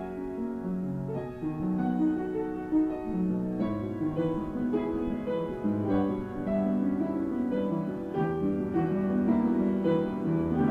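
Solo piano playing a moderato scherzo: a continuous flow of notes, mostly in the middle register.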